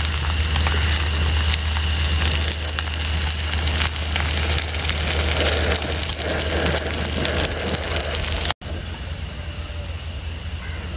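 King mackerel steaks shallow-frying in a pan of hot oil, the oil sizzling with fine crackles over a steady low hum. The sound cuts off sharply about eight and a half seconds in, and the sizzling then carries on more quietly.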